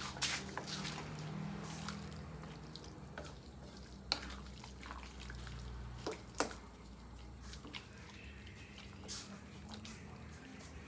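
Spatula stirring a thick, saucy pork blood stew in a large aluminium pan, with wet sloshing of the sauce and a few sharp clinks of the spatula against the pan, the loudest near the start and about six seconds in, over a low steady hum.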